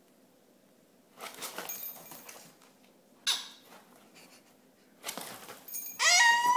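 Guinea pig in a hay-lined cage: a few brief rustles, then near the end a loud, high-pitched, wavering squeal starts. It is the wheek guinea pigs typically give when they expect food.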